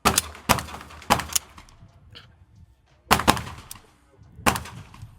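Suppressed 9mm gun fired in an irregular string of about eight sharp reports, several coming in quick pairs, each followed by a brief ringing tail.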